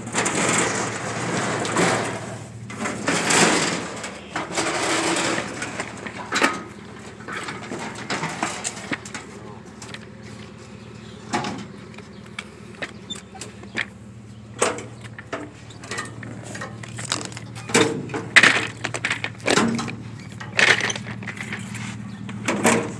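Gas grill being wheeled over pavement and loaded onto a trailer: rattling and scraping for the first few seconds, then scattered knocks and clanks of its metal body, louder near the end, over a steady low hum.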